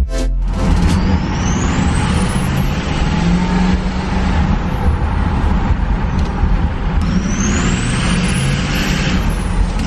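2003 Ford F350's 6.0L Powerstroke V8 turbo diesel pulling on the road, its freshly reconditioned turbocharger whistling. The whistle rises twice as the turbo spools up under acceleration, then falls away near the end.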